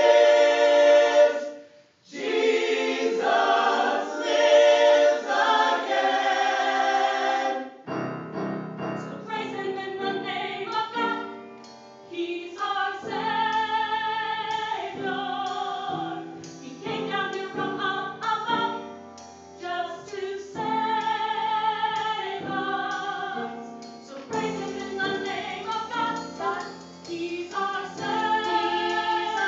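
A mixed choir of men and women singing a hymn-like song. The first stretch is loud and full, with a short breath near 2 s; from about 8 s in the singing turns softer and phrase-by-phrase over a low accompaniment, which the seated guitarist appears to be playing.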